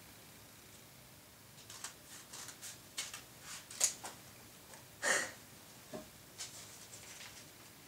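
Scissors snipping through a taped paper envelope, with paper rustling: a scattering of short, crisp snips and crinkles that start about two seconds in.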